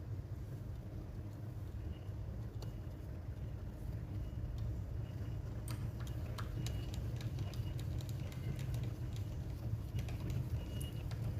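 Scattered light clicks and taps of small laptop parts and screws being handled while an SSD is fitted into the laptop, over a steady low background rumble.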